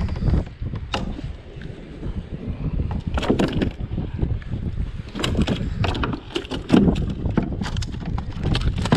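Wind rumbling on the microphone, with scattered knocks and clatter from fish and fishing gear being handled in a plastic kayak. There is a cluster of knocks about three seconds in and a longer run of them through the second half.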